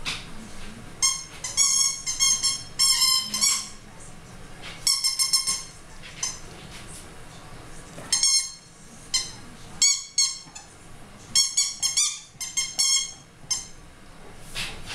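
Squeaky rubber ball toy squeaking in quick bursts of short, high-pitched squeaks as a dog bites and chews on it.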